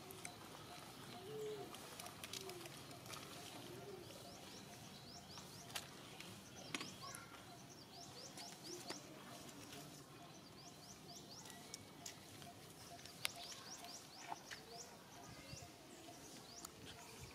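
Faint outdoor background with small birds chirping over and over in short high notes, broken by a few sharp clicks.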